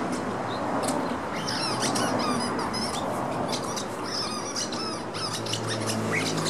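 A dog chewing a squeaky rubber ball, the toy giving short, repeated high squeaks.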